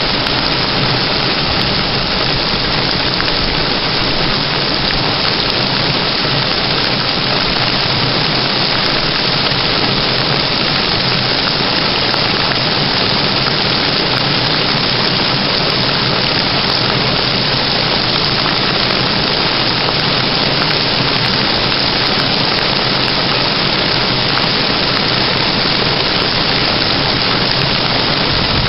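Heavy thunderstorm rain falling steadily: a dense, unbroken hiss of rain on surfaces.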